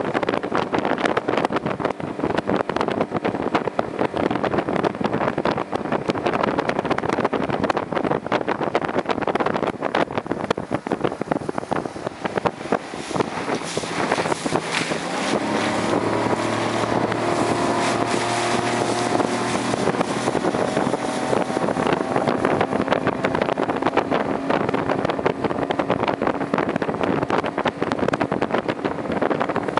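Motorboat engine running under way, with wind buffeting the microphone and the rush of water. About halfway through, a steady engine hum comes through more clearly.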